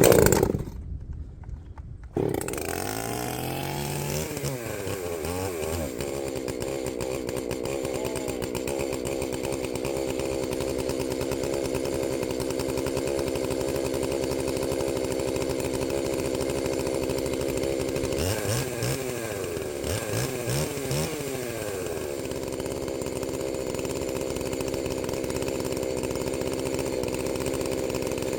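Small gasoline engine coming up to speed about two seconds in, its pitch rising, then running steadily at high revs, with brief dips in speed near the middle.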